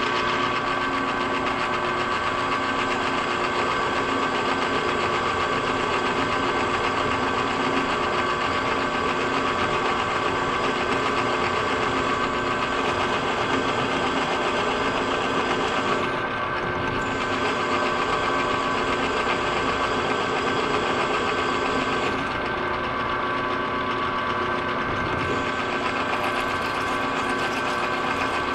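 Milling machine running steadily with a constant hum and whine, drilling the tap-drill hole for the shifter plate bracket in a Muncie four-speed transmission's extension housing. The sound changes slightly twice in the second half.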